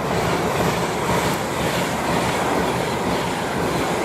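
Avanti West Coast Class 390 Pendolino electric train running through the station, a steady loud rush of wheel and rail noise.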